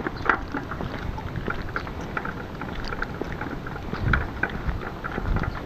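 Small two-wheeled hand cart carrying a 48-litre metal water can, rolling over wet asphalt. Its wheels and frame rattle with many irregular clicks, over footsteps on the wet road, with a few low rumbles near the end.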